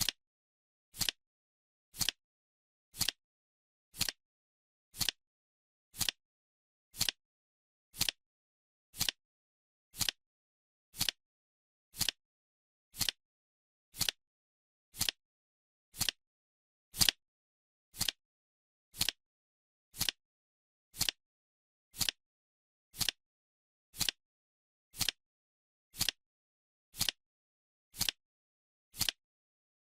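Clock-style ticking, one sharp tick each second at a steady even pace, with dead silence between ticks.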